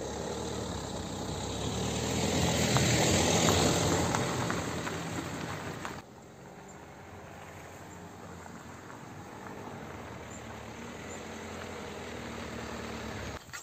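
A motor vehicle going by: its engine and road noise swell to a peak about three seconds in, then fade. After an abrupt cut, a fainter steady rumble follows.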